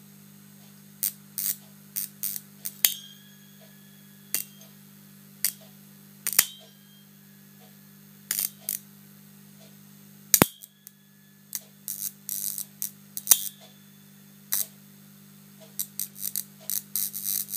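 High-voltage arcs snapping in irregular clusters as a probe carrying 240 V AC with about 5 kV superimposed touches a vacuum fluorescent display. Some snaps are followed by a brief ringing tone, and the loudest crack comes about ten seconds in. A steady low hum runs underneath.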